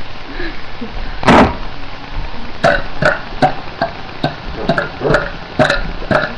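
A girl burping: one loud burp about a second in, then a quick run of short burps, about two a second.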